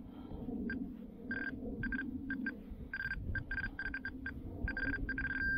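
Handheld XP MI-6 pinpointer giving a steady high beep in short, irregular bursts as its tip is worked through loose soil. The beeps come closer together and merge into one continuous tone near the end, the sign that the tip is right on the buried metal object. Soft rustling of soil runs underneath.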